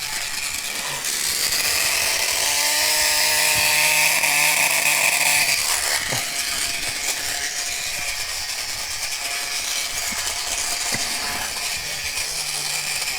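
Small battery-powered electric motor spinning a little cog and gear in a scratch-built G scale locomotive, running steadily at full battery voltage with no speed control fitted yet. Quite noisy and energetic.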